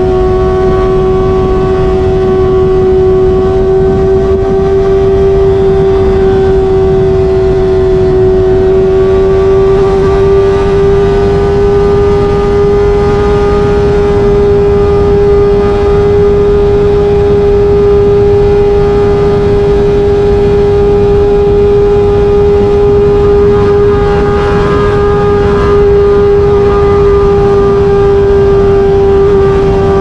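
Kawasaki ZX-25R's 250 cc inline-four engine through an SC-Project exhaust, held at high revs in a steady highway cruise: a steady high-pitched drone that climbs slightly about ten seconds in, over wind rush.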